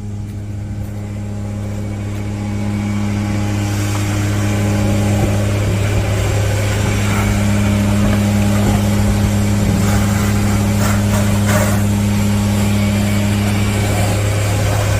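Septic pumper truck's engine running steadily while the septic tank is pumped out, growing louder over the first few seconds. A few short noises about ten seconds in.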